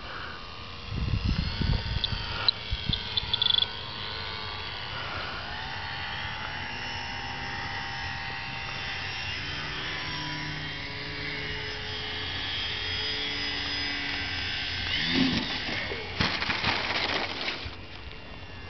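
Small electric RC plane's motor and propeller whining in flight, the pitch rising and falling with the throttle as it comes in to land. A few loud bumps come about a second in, and a burst of louder crunching comes near the end.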